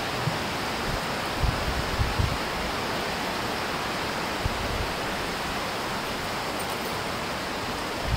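Steady rushing hiss of a small forest creek's running water, with a few brief low thumps in the first five seconds.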